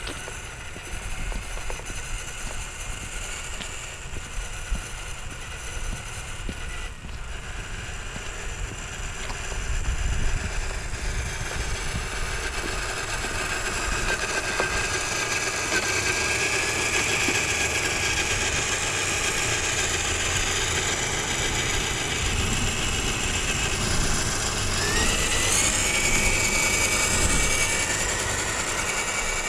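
Electric drive motor and gearbox of a scale RC crawler truck whining steadily as it drives. It gets louder about ten seconds in and rises in pitch near the end.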